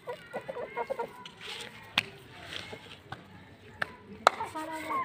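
Hens and roosters clucking in short calls, with a few sharp knocks about two seconds in and near the end.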